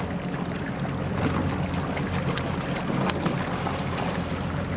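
Outboard motor running at trolling speed, a steady low hum, over wind and water hiss. A few short sharp splashes come through it as a hooked fish thrashes at the surface close behind the boat.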